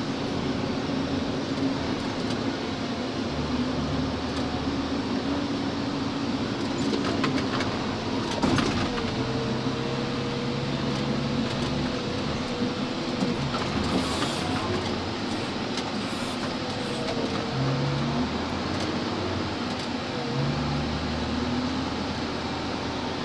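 Dump truck engine running steadily while driving, its note shifting now and then, with rattling and a few short knocks from the body over rough ground.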